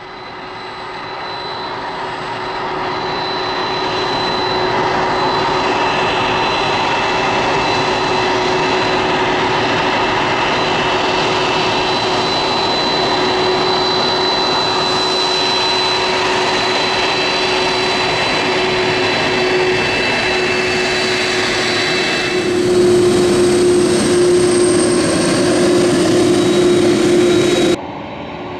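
A KLM Boeing 747-400's four General Electric CF6-80C2 turbofans whining at taxi power as the jumbo jet taxis toward the listener. High steady tones sit over a rushing noise. It grows louder over the first few seconds, holds steady, gets louder again about three-quarters of the way through, and cuts off abruptly near the end.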